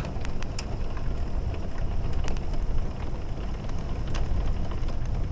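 Heavy rain pouring steadily in a thunderstorm, with a low rumble underneath and scattered sharp ticks of drops striking.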